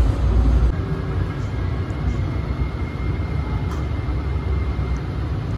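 Inside a Blue Line light rail car in motion: a steady low rumble from the running train, with a faint, steady high whine through the middle.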